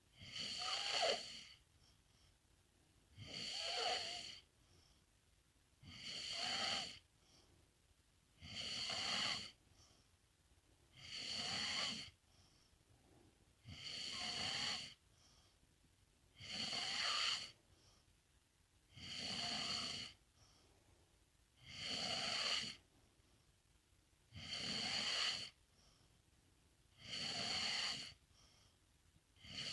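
A sleeping pet snoring in slow, even breaths: eleven snores, each lasting about a second, roughly every two and a half to three seconds.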